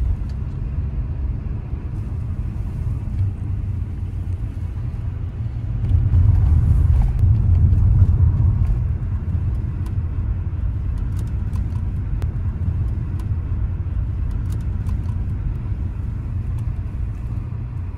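Steady low engine and road rumble of a car being driven at moderate speed, heard from inside it, swelling louder for a few seconds about six seconds in.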